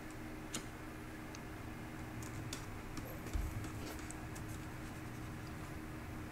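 Faint, scattered clicks from computer input devices, over a low, steady hum.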